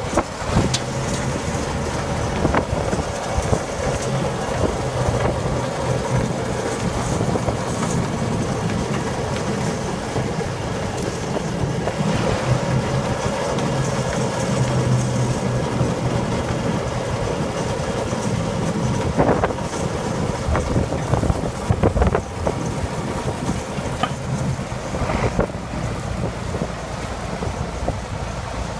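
Scarab 14 compost windrow turner running steadily, its diesel engine humming under load while the machine works through the pile. Scattered knocks and clatters come through, the loudest about 19, 22 and 25 seconds in.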